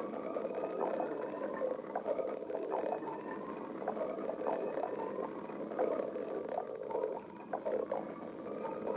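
Human stomach growling: a continuous rumble with long, drawn-out tones that slide slowly in pitch, broken by many short gurgles and pops.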